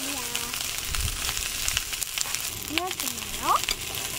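Food sizzling and frying in a pan, a steady hiss dotted with small crackles and clicks.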